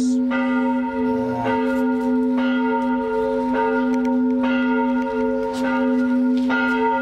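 Church bells ringing: repeated strikes roughly once a second over a continuous ringing hum.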